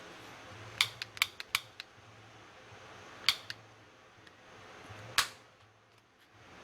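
Sharp clicks of the Snap-on YAKS42 butane soldering iron's gas switch and spark igniter being worked: a quick run of about six clicks, two more a couple of seconds later, then a single loud one. The iron is not lighting, and the owner takes it for faulty.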